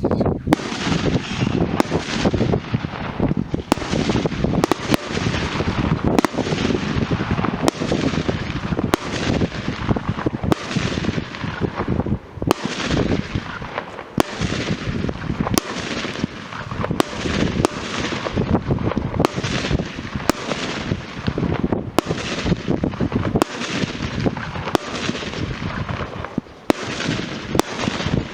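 Fireworks going off without a break: dense crackling with many sharp bangs, several a second.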